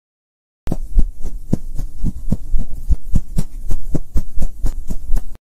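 Animated logo intro sound effect: a rapid, uneven run of deep percussive thumps with sharp clicky tops, about four a second, starting about a second in and cutting off abruptly near the end.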